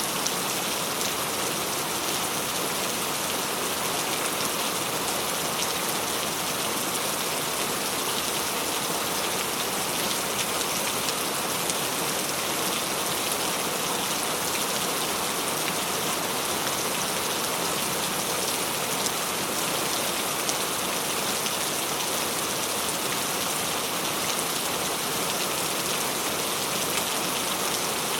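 Steady rain falling and pattering on a surface, a dense even hiss with fine droplet ticks.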